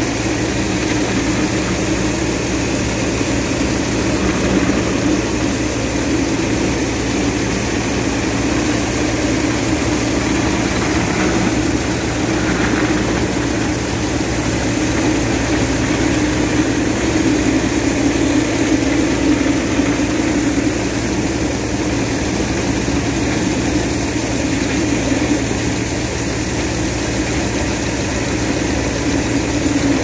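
60 hp Swaraj 963FE tractor engine and its mounted Swaraj Balkar B-525 combine harvester running steadily while the unloading auger discharges threshed paddy grain.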